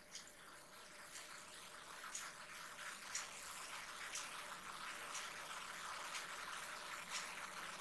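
Faint steady hiss with soft, short ticks about once a second.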